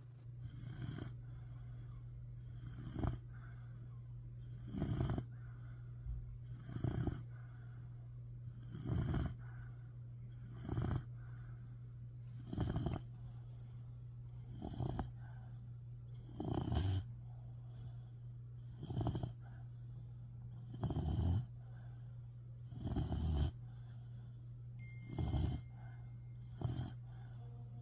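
A puppy snoring in a steady rhythm, one snore about every two seconds, over a steady low hum.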